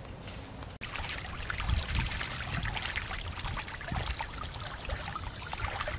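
Ducks splashing and dabbling in shallow muddy water: a busy crackle of many small splashes that starts suddenly about a second in.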